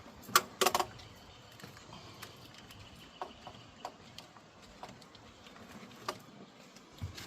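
Scattered clicks and light knocks of hand work on parts and tools: a quick cluster of sharp clicks about half a second in, then faint, irregular ticks and one sharper click near the end.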